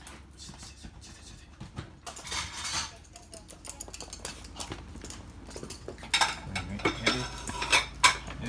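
Two toy poodles scuffling in play, with scattered clicks and clatter that turn into a run of sharp, loud clicks from about six seconds in.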